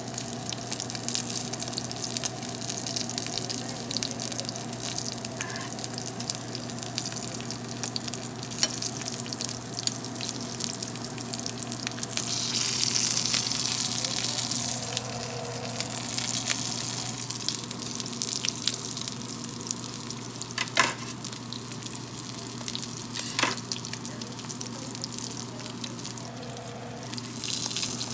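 A5 wagyu striploin searing in its own fat in a cast-iron skillet: steady sizzling and crackling, swelling louder for a few seconds near the middle. There are two sharp clicks later on, and a steady low hum underneath.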